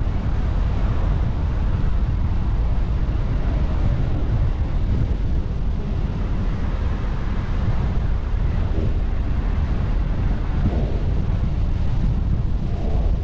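Steady low rumble of a car on the move: road and wind noise.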